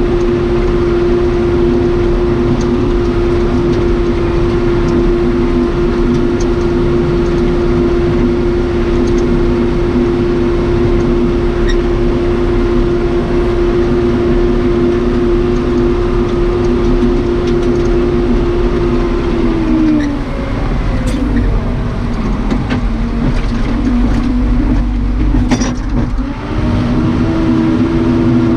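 Cummins 4BT diesel of a 1993 Case 580 Super K backhoe running at steady high revs; about twenty seconds in the revs fall away, then climb back up near the end, with a few sharp knocks in between.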